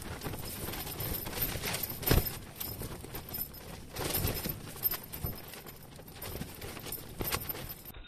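A few irregular dull knocks over a steady background hiss, the loudest about two seconds in.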